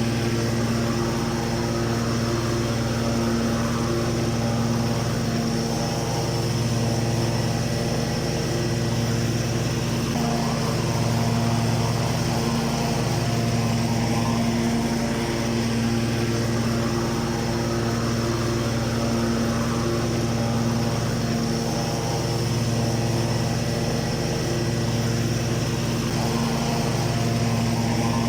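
Ride-on lawn mower engine running steadily at a constant speed, with a slow, gentle rise and fall in level.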